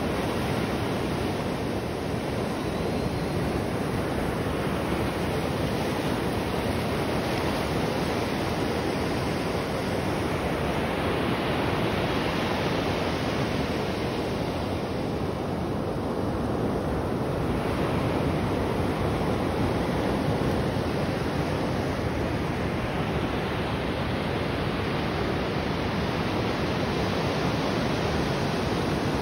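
Ocean surf washing up the beach: a steady rushing that swells and ebbs slowly every several seconds.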